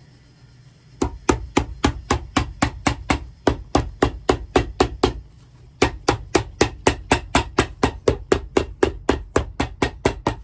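Cobbler's hammer tapping rapidly on a shoe, about four strikes a second, in two long runs with a short break about five seconds in.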